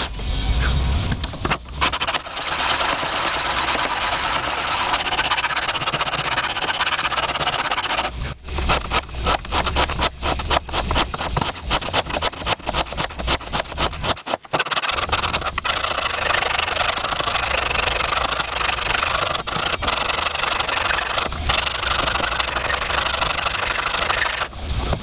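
Steel being worked by a tool in a steady, dense rasping noise, with brief breaks near the start and about 8 and 14 seconds in.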